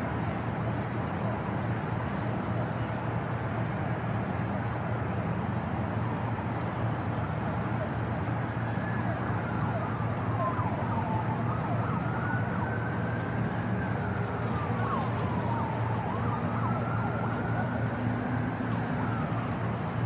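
City park ambience: a steady hum of road traffic. From about eight seconds in, a faint emergency-vehicle siren wails in slow rises and falls.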